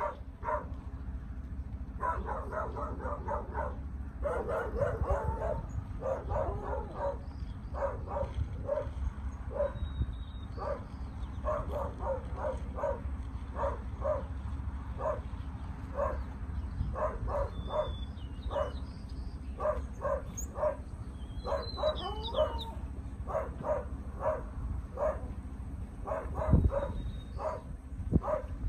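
A dog barking over and over in quick runs of short, sharp barks.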